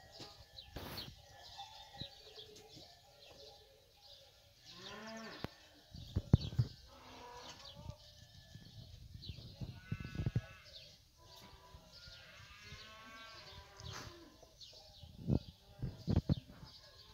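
Livestock pen: several high, wavering animal calls, about a second each, and a few sharp knocks around a herd of fighting bulls feeding at a trough.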